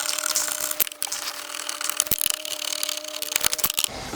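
Crackly scraping and small clicks of metal and plastic as the car radio's mounting screws are worked out of the dashboard.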